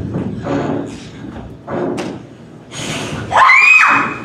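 Thumps and scuffling footfalls of actors struggling on a stage, with a sharp knock about two seconds in, then a loud, high-pitched shriek near the end.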